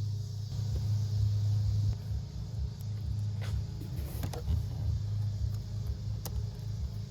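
A steady low hum, with a few short clicks and rustles from hands taping a wire and fitting the switch assembly back in.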